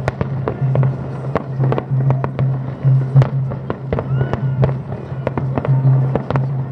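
Fireworks bursting in quick succession, many sharp cracks and bangs across the whole stretch, with festival music running underneath.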